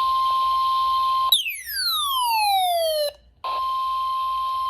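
NOAA Weather Radio warning alert tone, a steady single tone, sounding for a flood warning. About a second in it breaks off for a falling swoop tone lasting about two seconds, then after a brief gap the steady tone resumes.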